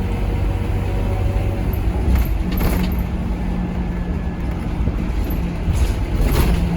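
Scania K230UB single-deck bus running along, its engine holding a steady low hum, with short rattles twice, about two seconds in and near the end.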